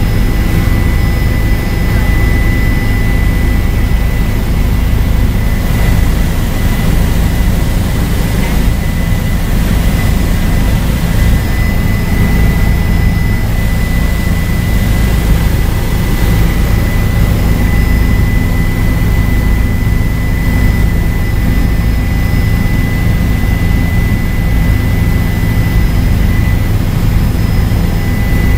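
Bell helicopter in steady flight, heard from inside the cabin: a constant low rotor and engine drone with a thin, steady turbine whine above it.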